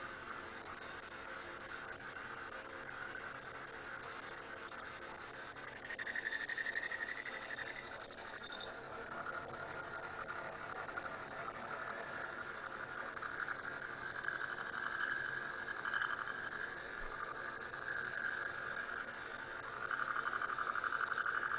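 Bridgeport milling machine spindle running while a half-inch two-flute end mill climb mills a full-depth slot in 6061 aluminum: a steady whirring cutting noise that grows a little louder about six seconds in and again near the end. The spindle is turning slower than ideal, and the cut leaves a finish that could have been better.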